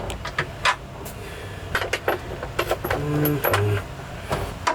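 Metal hand tools and sockets clinking and knocking together in quick, irregular clicks as they are rummaged through.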